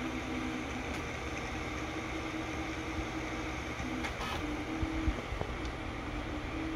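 Tronxy X5SA 3D printer printing, its stepper motors on 2209 drivers giving a low whine whose pitch changes and cuts in and out with each move, over the steady hiss of its cooling fans. A few light ticks and thumps come about two-thirds of the way through.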